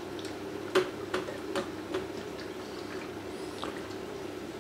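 Quiet kitchen handling as dark soy sauce and toasted sesame oil are added: a few light clicks and taps, mostly in the first two seconds, over a steady low hum.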